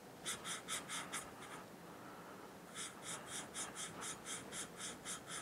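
Engine valve being hand-lapped into its seat in a Honda Rancher 350 cylinder head: the lapping compound gives a gritty scrape with each back-and-forth twist, at about four strokes a second. There is a short run, a pause of about a second, then a longer run.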